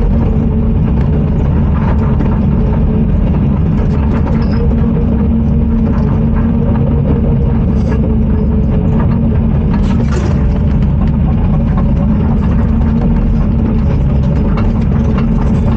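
Excavator's diesel engine running steadily, heard from inside the cab, with a constant hum and scattered faint clicks and knocks.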